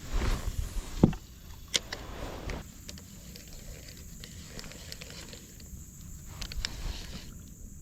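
Low rumble of wind on the microphone with scattered light clicks and knocks, the loudest about a second in.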